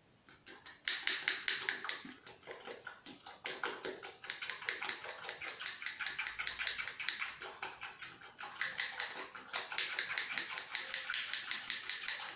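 Spoon stirring thick mug-cake batter in a cup, clicking and scraping against the sides in a fast steady rhythm.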